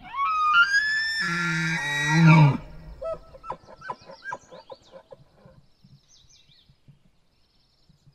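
Bull elk bugling: a high whistle rising for about a second, joined by a deep growl, then breaking off about two and a half seconds in. A run of short grunts follows, several a second, dying away near the middle. It is the rut call that draws females and warns other males away.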